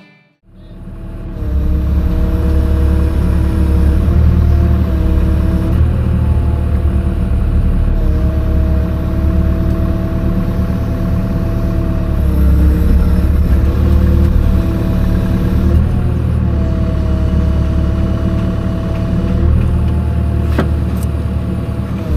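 Caterpillar 305 mini excavator's diesel engine running with a steady hydraulic whine that shifts slightly in pitch every few seconds as the machine works. It comes in about a second in, and there is a sharp click near the end.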